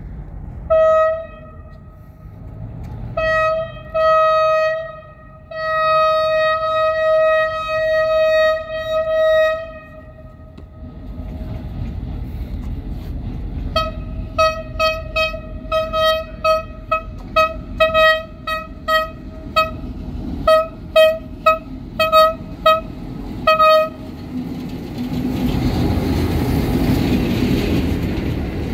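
Diesel locomotive's air horn sounding one steady note: a few short blasts, then a long blast broken into several parts, and after a pause a rapid string of short toots at about two a second. Near the end the horn stops and the locomotive and coaches roll past with a swelling rumble.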